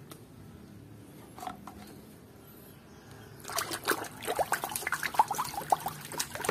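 Muddy water sloshing and splashing in a plastic basin as a hand swishes through it, starting about halfway through after a faint, quiet stretch.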